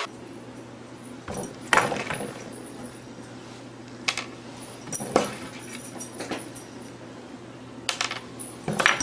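Light, sharp clicks and taps on a wooden tabletop, a handful of them spaced irregularly a second or more apart, over a faint steady hum.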